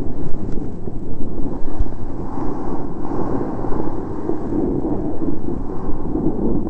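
Wind buffeting the microphone of a camera carried at speed down a snowy slope, a loud, steady, uneven rumble mixed with the sound of sliding over snow.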